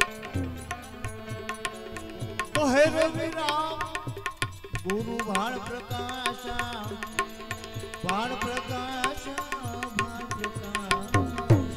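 Live Indian devotional bhajan music: tabla strokes with falling bass glides under steady held notes, and a bending, wavering melody line that comes in three phrases.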